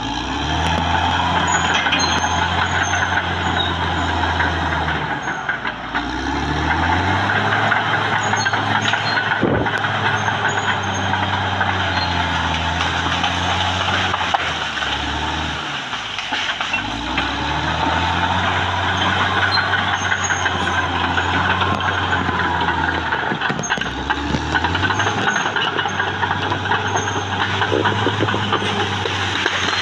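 Caterpillar D6R XL bulldozer's diesel engine working under load, its pitch dipping and climbing again several times as the load changes. A steady high hiss runs over it throughout.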